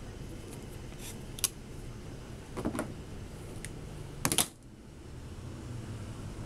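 A few sharp plastic clicks and knocks from laptop parts being handled and fitted together: a single click, a short rattle of clicks, then a loud double click, over a steady low hum.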